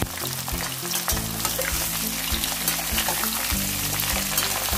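Green mango pieces sizzling and crackling in hot mustard oil in a kadai. A spatula stirs them and clicks and scrapes against the pan.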